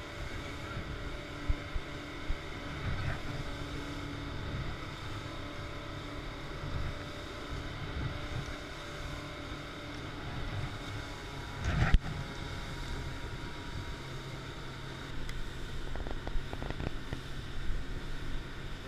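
Motorboat running at speed, its engine a steady drone under the wash of water and spray along the hull. A single sharp thump about twelve seconds in.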